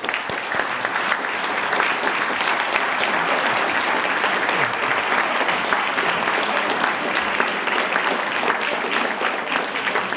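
A large audience applauding, many hands clapping together. The applause breaks out right at the start and holds steady.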